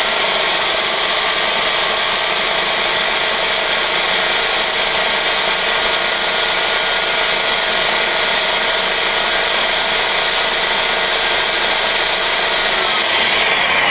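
Electric blender motor running at full speed, puréeing a remoulade sauce of chopped vegetables, oil and vinegar: a steady high whine over a rushing noise. Near the end it is switched off and the whine falls as the motor spins down.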